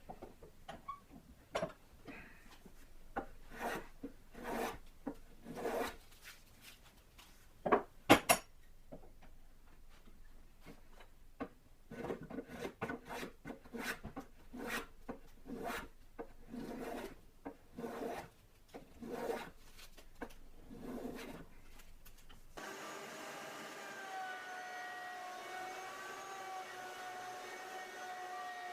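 Hand plane taking strokes along the edges of a glued-up wooden block held in a vise, planing off squeezed-out glue, a stroke about every second, with two sharp knocks about eight seconds in. Near the end this cuts suddenly to a steady electric motor hum.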